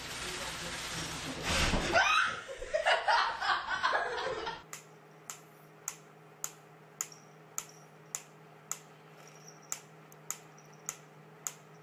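A person laughing for the first few seconds. Then a wooden pyramid-style clockwork metronome ticking steadily, a little under two ticks a second.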